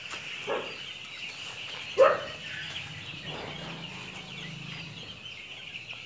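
A large flock of young broiler chicks peeping all at once, a dense, steady high chirping, with a brief louder sound about two seconds in.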